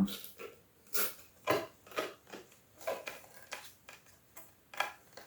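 Light knocks and clicks, about two a second and unevenly spaced, as a ceramic floor tile that has caught on something is worked and tapped into place.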